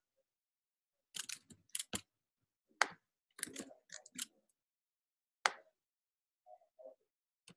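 Scattered clicks and key taps of a computer mouse and keyboard while text is copied and pasted between windows: a quick cluster about a second in, more around three to four seconds, and a single sharp click about five and a half seconds in.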